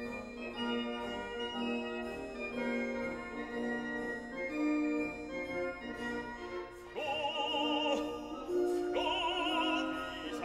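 Background classical music: sustained organ-like chords, joined about two-thirds of the way in by operatic singing with a wide vibrato.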